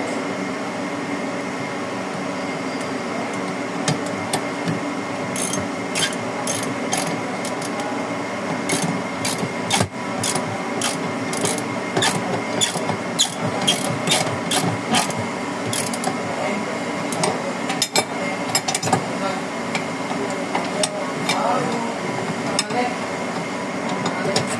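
Irregular metal clicks and knocks of hand tools on a dust collector's valve fitting during installation, over a steady machinery hum. The clicks come thickest through the middle of the stretch and thin out near the end.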